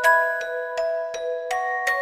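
Background music: a gentle tune of bell-like mallet notes struck at a steady beat, a few notes a second, over held chord tones.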